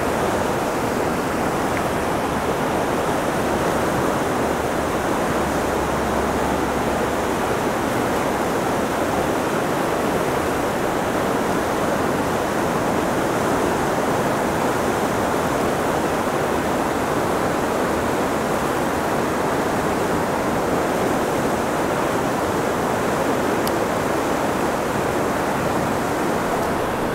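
Fast whitewater river rapids rushing past in a steady, unbroken wash of noise.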